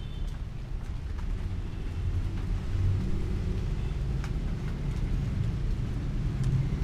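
A steady low rumble, growing louder near the end, with a few faint clicks over it.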